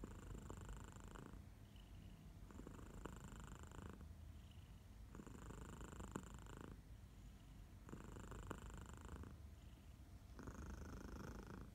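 Domestic cat purring softly close up, swelling and fading with each breath in slow, even cycles about every two and a half seconds.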